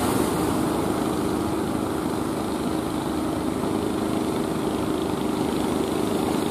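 A boat engine running steadily, its even hum sounding over the wash of breaking surf.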